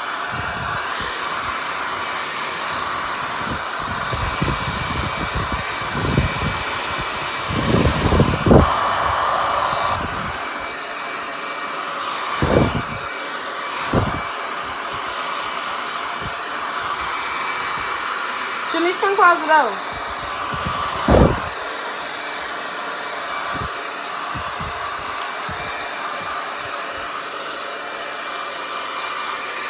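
Handheld hair dryer running steadily with a thin motor whine, blowing on wet hair to dry it. Several short low gusts come through as the airflow is swung across the hair.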